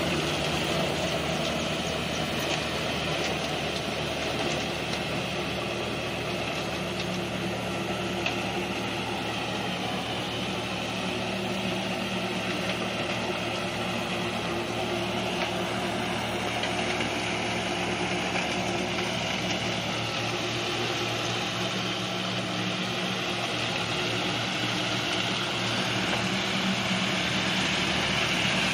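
Tractor diesel engine running steadily under load as it drives a rear-mounted rotavator through wet paddy mud. It grows a little louder near the end as the tractor comes closer.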